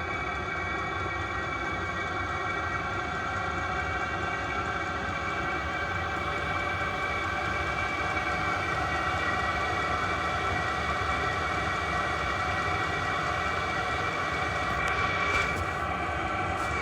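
Vevor diesel air heater running with no exhaust muffler: a steady, unmuffled low combustion rumble under a constant multi-tone whine. It grows slightly louder over the stretch, with a brief louder sound near the end.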